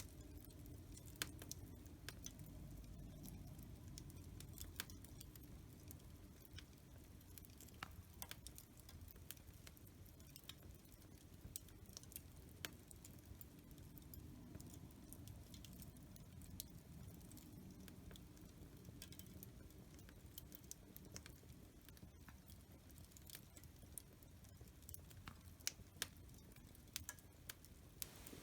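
Wood fire in a fireplace crackling faintly: scattered, irregular sharp pops and snaps over a low, steady rumble.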